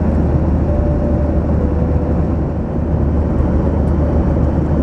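Steady cabin noise of a Boeing 737-800 airliner in flight: a low engine drone under an even rush of airflow.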